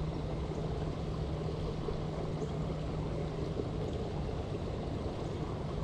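Steady rain noise, with a low steady hum that stops about three and a half seconds in.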